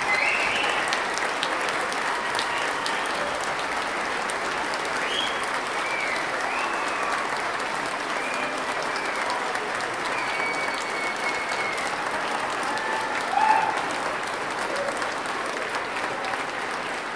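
Large audience applauding steadily, with scattered cheering calls and whistles over the clapping and one louder call about thirteen seconds in.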